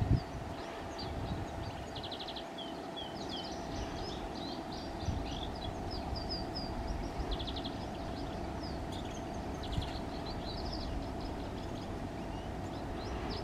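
Small songbirds chirping and twittering, with a short rapid trill twice, over a steady low rumble and a faint steady hum.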